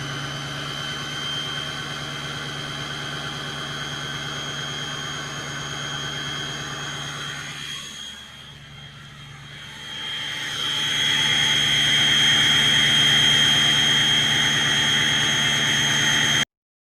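Ford 6.0 Powerstroke V8 turbodiesel running at high idle with a steady high-pitched turbo whistle over the engine. About halfway through the sound dips briefly, then comes back louder with more hiss and a stronger whistle until it cuts off just before the end.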